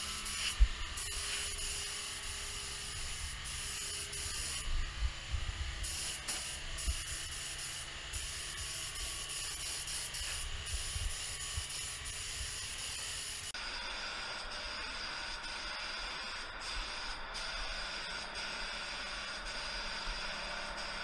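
HVLP gravity-feed spray gun spraying paint, its compressed air hissing steadily in passes, with short breaks where the trigger is released. A sharp bump about half a second in, and low knocks from handling the gun.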